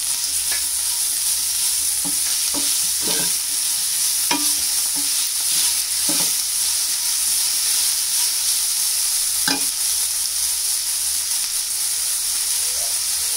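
Boneless chicken, capsicum and spring onions sizzling in oil in a hot wok, with a metal spatula scraping and tapping against the pan at irregular moments as the food is stirred.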